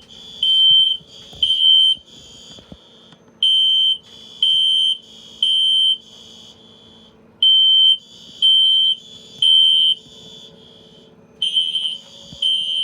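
System Sensor SpectrAlert Classic fire alarm horn sounding the temporal-3 evacuation code: three high, harsh half-second blasts, a pause of about a second and a half, then three more, repeating. Fainter blasts from other horns in the same system overlap slightly out of step.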